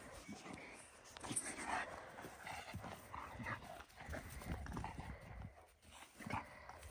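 Dogs playing, with short vocal sounds mixed with irregular knocks and scuffles.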